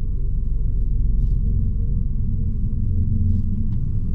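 A steady low rumbling drone with a faint thin tone held above it.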